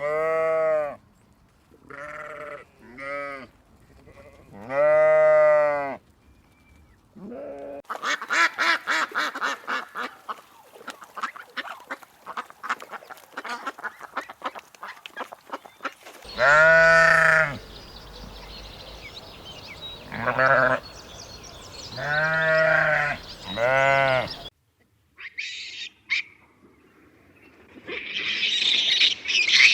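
Livestock bleating: a series of drawn-out calls with a wavering pitch, some repeated close together. Between the calls there is a stretch of rapid clicking or chattering. Near the end come higher, harsher bird-like calls.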